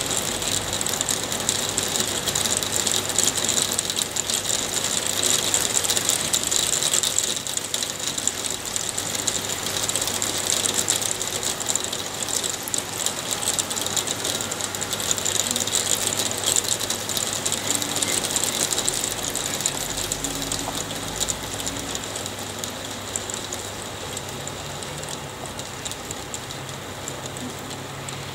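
Hail falling and striking hard surfaces close by: a dense, steady rattle of rapid ticks that eases a little over the last few seconds.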